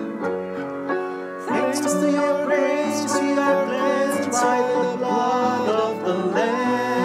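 Voices singing a worship song in unison over instrumental accompaniment. The vocal line pauses briefly about a second in, then comes back louder with the next phrase.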